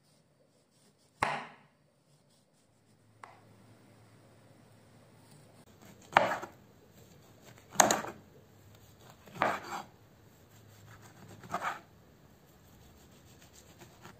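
Kitchen knife cutting the peel off an orange and slicing it into rounds on a wooden cutting board. There are five short chopping strokes a second or more apart, each ending as the blade hits the board, and a fainter one about three seconds in.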